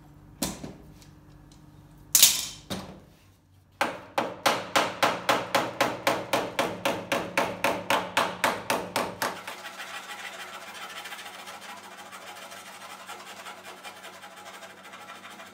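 Two single knocks, then a hammer tapping quickly, about four blows a second, dressing the edge of a metal quarter panel down onto its ash wood frame. From about nine seconds in, a hand file scrapes steadily along the panel edge.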